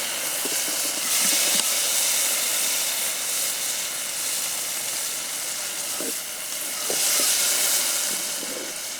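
Onion, tomato and spice masala sizzling as it fries in oil in a pan over a campfire, a steady hiss that swells a little twice, with a few light clicks of stirring.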